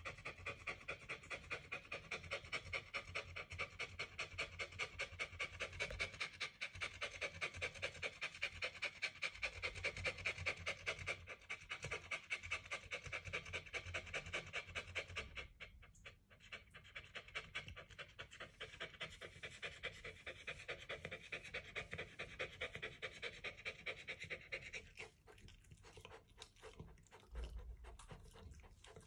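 Dog panting rapidly and steadily close to the microphone, several quick breaths a second. The panting weakens and turns uneven near the end.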